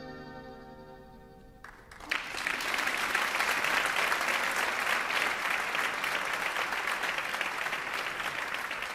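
The last chord of the music fades away, and about two seconds in an audience breaks into applause, which then goes on steadily.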